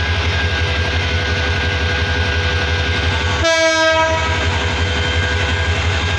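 Diesel locomotive running with a steady, low pulsing engine note as it pulls slowly into a station. It sounds one short horn blast about halfway through.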